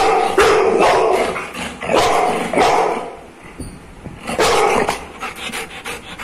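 Labrador barking repeatedly, a run of loud separate barks with a short lull around the middle. The dog is barking at its own reflection in a mirror, taking it for another dog.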